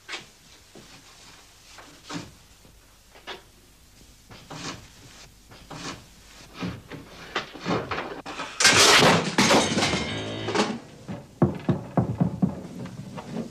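Scattered knocks and thuds, then a loud crash of many impacts about nine seconds in as a pile of suitcases and a sewing machine comes down off a shelf, with a few more thuds after. Music plays with it.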